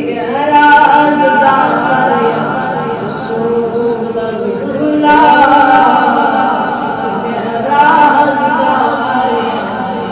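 A boy's solo voice singing a Kashmiri naat into a microphone, in three long melodic phrases with a wavering, ornamented line.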